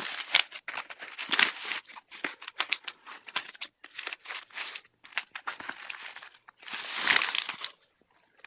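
Nylon tactical vest being handled: fabric rustling and scraping, broken by sharp clicks, with a longer, louder rasping burst about seven seconds in.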